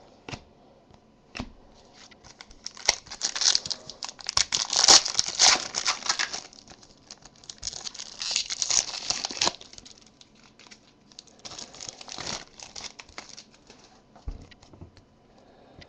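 A trading-card pack wrapper being torn open and crumpled, in bursts of crinkling, loudest in the first half.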